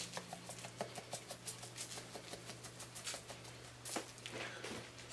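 A plastic shaker jar of barbecue seasoning being shaken over raw pork, heard as a faint, quick run of light rattling taps as the granules patter down.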